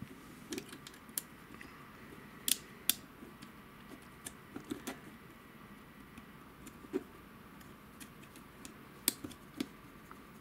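Irregular plastic clicks and taps as a 3D-printed Raspberry Pi case is handled and its top piece is pressed on and realigned, with a few sharper clicks, two close together about two and a half seconds in and another near the end.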